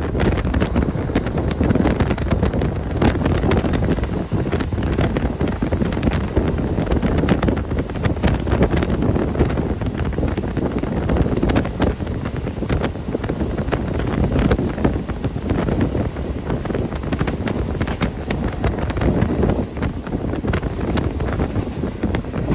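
KiHa 40 diesel railcar running on the line: a steady rumble with wind on the microphone and scattered light clicks.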